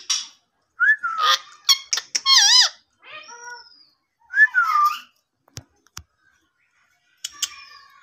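Indian ringneck parakeet calling in a run of short squeaks and whistles, some with a wavering, warbling pitch. Two sharp clicks come about five and a half seconds in, then a brief pause before one more squawky call near the end.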